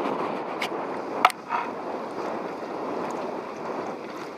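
Wind buffeting the microphone and water lapping against a boat's hull, an even rushing noise that eases off toward the end. A sharp knock sounds just over a second in.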